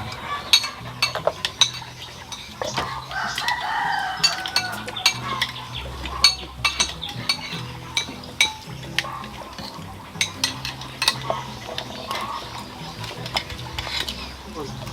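Cutlery clinking and scraping on plates during a meal, many short sharp clicks, with a rooster crowing once about four seconds in.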